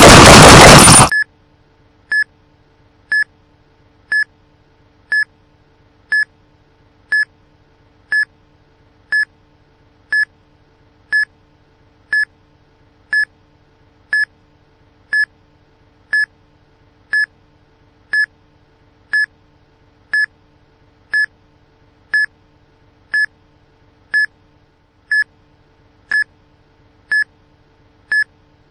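Time-bomb countdown timer beeping: a short, high electronic beep once a second, in step with the display counting down. Before the beeps, a loud noisy burst cuts off suddenly about a second in.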